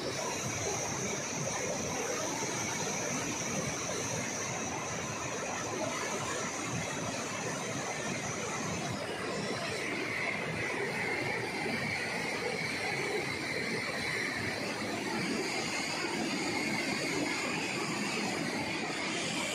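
Rushing white water of a rocky mountain river, a steady roar of rapids pouring over and around boulders. A thin, high, steady tone sits over it for the first half.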